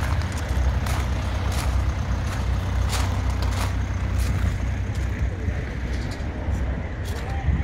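Footsteps crunching on gravel, about one every two-thirds of a second for the first few seconds, with a few more scattered crunches later, over a steady low rumble.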